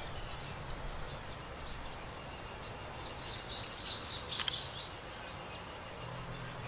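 Quiet background ambience with a bird chirping in a quick series of short high notes about three seconds in, and a single sharp click shortly after.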